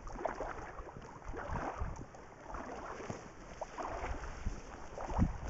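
Chum salmon flopping in shallow water over river stones, making irregular small splashes.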